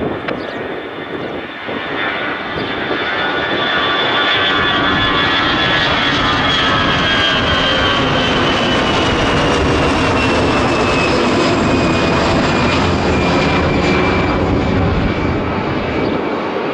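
Airbus A319-100 jet taking off, its engines at takeoff power. The sound swells over the first few seconds and holds loud, while a high whine slides steadily down in pitch as the jet passes, then eases near the end.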